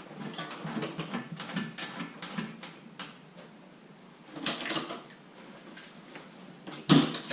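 Metal clinks and clanks of a plain, non-ratcheting wrench working bolts on a steel snow-plow mount: a run of light clicks, a short clatter about four and a half seconds in, and one sharp clank, the loudest sound, near the end.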